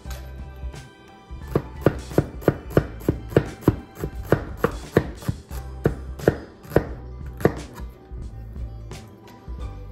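Bob Kramer Carbon 2.0 8-inch carbon-steel chef knife dicing shallots on a wooden cutting board: a quick, even run of knife strikes on the board, about three a second. It starts about a second and a half in and stops near the eight-second mark.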